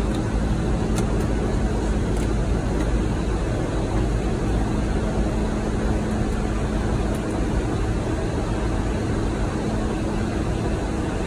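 Airbus A330 at takeoff heard from inside the cockpit: a steady, loud rumble of jet engines and rushing airflow with a constant low hum running under it.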